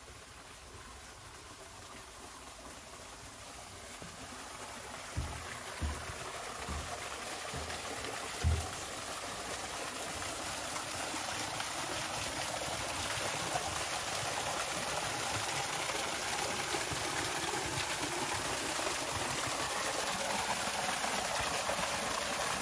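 Small garden waterfall splashing into a pond, the rush of water growing steadily louder. A few low thumps sound between about five and nine seconds in.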